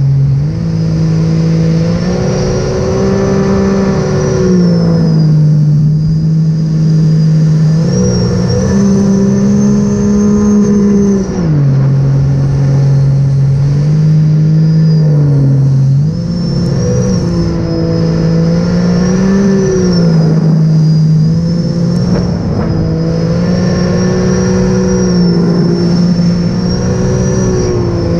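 Supercharged three-cylinder engine of a 2018 Sea-Doo RXP-X 300 jet ski running hard under way, its note holding steady and then stepping up and down several times with the throttle. A high whine follows the engine's changes.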